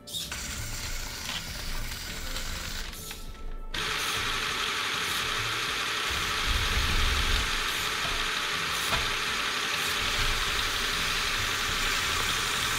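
Lego motors and gearing of an automated gantry crane running as it handles a container. About four seconds in, a motor-driven Lego pneumatic compressor starts up and keeps running steadily to top up the air pressure that the crane's pneumatics have used.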